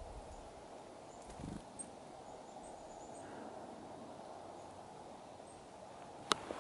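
Quiet outdoor ambience with a steady low rush, over which a black-capped chickadee gives a few faint, short high chirps. A soft thump comes about a second and a half in, and a sharp click near the end is the loudest sound.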